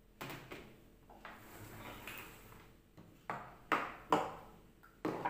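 Plastic kitchenware handled and set down on a countertop: a red plastic colander put down, then a cup and lid knocked about, giving a series of sharp clacks, the loudest a few close together about three to four seconds in.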